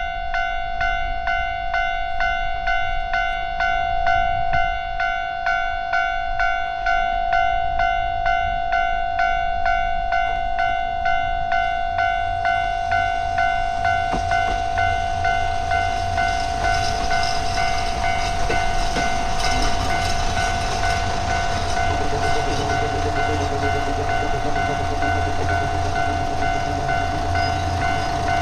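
Japanese railway level-crossing warning bell ringing in a rapid, evenly repeating electronic ding. About halfway through, a diesel railcar draws near and runs past the crossing, its engine rumble and wheel-on-rail noise growing under the bell.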